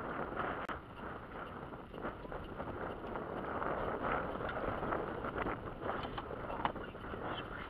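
Wind and small choppy waves lapping against the boat's hull, a steady rushing wash, with a few faint clicks and knocks from gear being handled on the deck in the second half.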